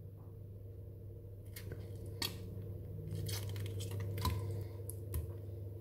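Serrated knife cutting cherry tomatoes over a stainless steel pot, with about six light clicks and knocks of the knife and the falling tomato pieces against the pot.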